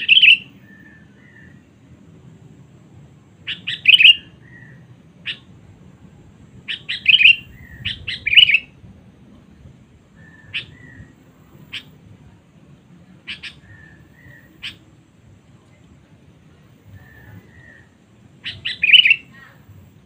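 Sooty-headed bulbul (kutilang) calling: loud clusters of short, sharp chirps, four times, with single chips and softer, lower notes in between.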